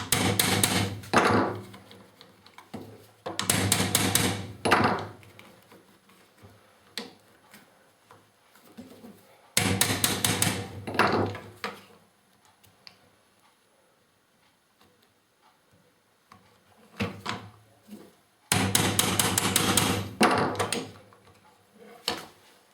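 A small hammer tapping a cap screw through a drilled hole in a plastic bar clamp, in four bursts of quick repeated taps, each one to two seconds long, with pauses between.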